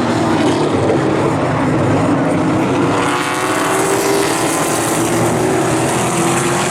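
Pro Late Model stock cars' V8 engines running at racing speed on an asphalt oval. About halfway through, one car's engine note climbs as it accelerates and comes closer.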